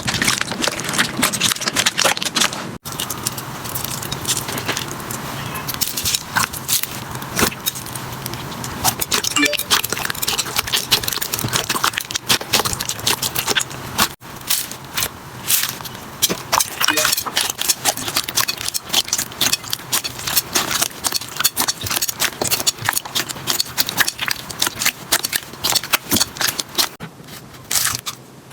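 Slime being squeezed and worked by hand, making dense, rapid crackling clicks and pops. Brief breaks about 3 and 14 seconds in split it into separate stretches.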